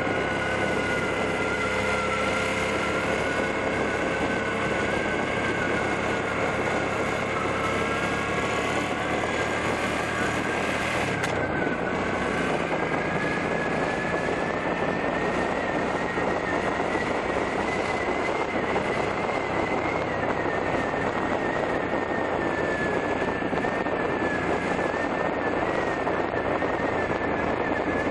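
Motorcycle engine running steadily on the road with a constant rush of wind over a head-worn microphone, the engine note drifting a little in pitch. About eleven seconds in, the sound changes abruptly and the engine note shifts.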